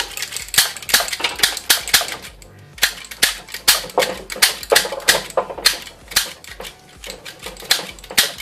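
Rose Kuli handheld kitchen chopper-scissors snipping through a raw carrot: a quick, steady string of sharp snaps, about three a second, as the sharp blade scrapes past its steel edge and seats on the cutter deck with each squeeze.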